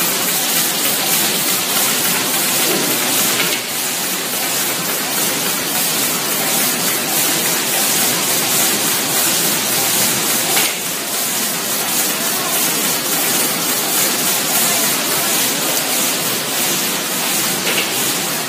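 High-speed carton folder gluer running: a steady, dense rushing noise of its belts and rollers with a fast, fine rattle as fried-chips box blanks are carried through.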